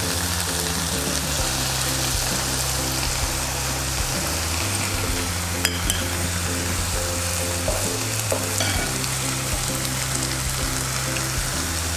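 Green beans, chili, tomato and oyster sauce sizzling steadily in hot oil in a frying pan, with a couple of light clicks. Soft background music plays underneath.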